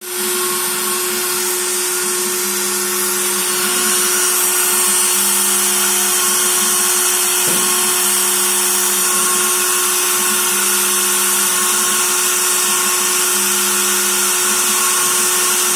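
Shapeoko 3 CNC router's spindle motor running at speed: a loud, steady whine with hiss, joined every few seconds by a lower hum that comes and goes as the machine works.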